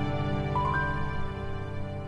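Soft background music of sustained, held tones, with a couple of higher notes coming in about half a second in.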